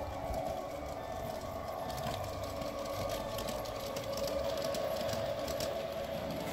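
Large-scale garden model train's electric motor and gears whirring steadily as the train passes close by, with occasional light clicks.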